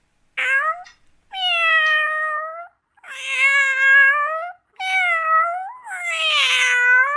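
Domestic cat meowing: one short meow, then three long, drawn-out meows.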